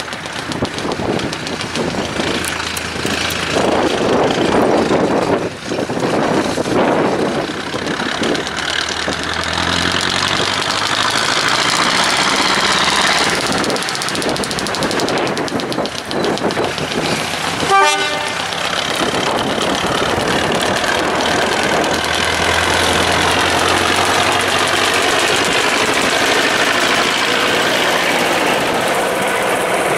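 Narrow-gauge diesel shunting locomotive (locotracteur) running as it hauls a rake of passenger coaches past, its engine and rolling wheels making a steady noise. A little past halfway its horn gives one short toot.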